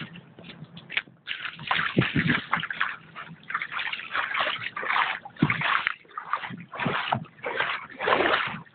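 Wader-clad legs striding through deep puddle water: repeated splashing and sloshing, one surge after another with each step.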